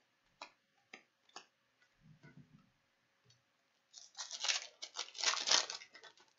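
A few light clicks as cards are handled, then, about four seconds in, about two seconds of crinkling and tearing as the wrapper of a 2014-15 Upper Deck Series 1 hockey card pack is ripped open.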